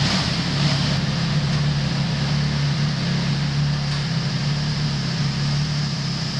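MV Agusta motorcycle engine idling steadily during its final end-of-line check before despatch.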